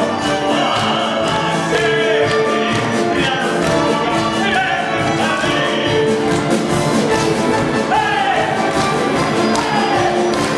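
Orchestra playing operetta music, steady and full throughout.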